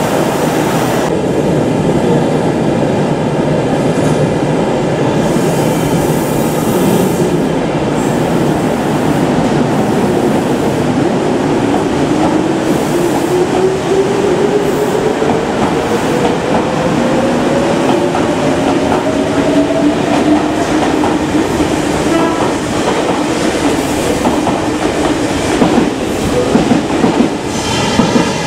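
Meitetsu red-and-white limited-express electric train pulling out of an underground platform: a steady rumble of wheels on rail with clickety-clack. From about a third of the way in, the traction motors give a whine that climbs steadily in pitch as the train picks up speed.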